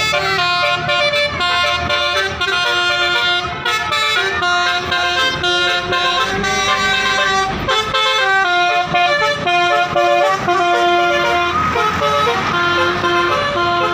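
Basuri musical multi-tone bus horn playing a tune: a run of held horn notes stepping up and down in pitch, with no break.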